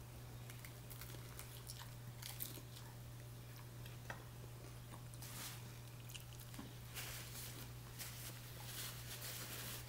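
Faint biting and chewing of a taco, with small scattered mouth clicks and crunches, over a steady low hum.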